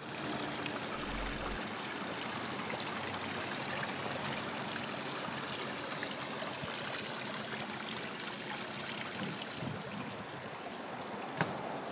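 Tiered fountain splashing steadily, water spilling from its bowls into the basin. A short click near the end.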